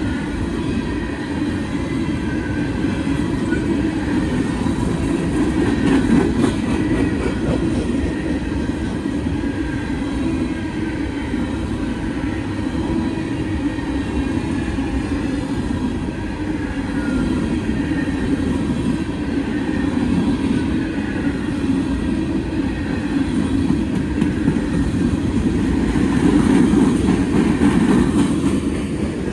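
Freight train cars rolling past on the track: a steady rumble and rattle of steel wheels on rail, with faint wheel squeal, growing louder near the end.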